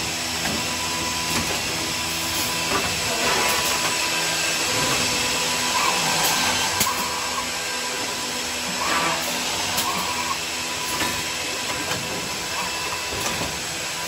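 Morbidelli Powerflex S through-feed drilling machine running: a steady machine whir and hiss, with a few brief louder swells about halfway through as it works a panel.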